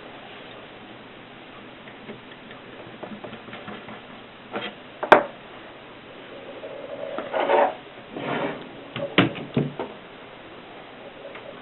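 Antique Mercedes typewriter being handled: irregular mechanical clicks and short scraping, rubbing noises. The loudest is one sharp click about five seconds in, followed by a couple more clicks later.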